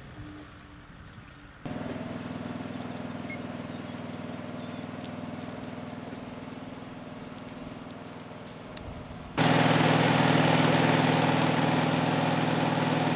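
Engine-driven fire pump running steadily, with the hiss of a hose jet. The sound cuts in louder about one and a half seconds in, and again much louder, with a strong hiss, about nine seconds in, as the jet plays onto smouldering brushwood.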